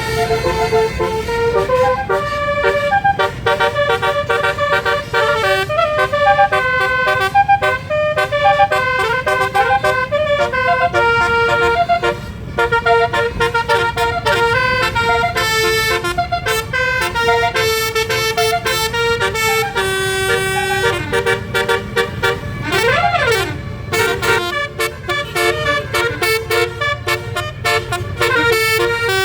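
A Basuri 'telolet' bus horn with 12 trumpets playing a fast melody of stepping notes, with one swooping slide down and back up about two-thirds through, over a steady low rumble.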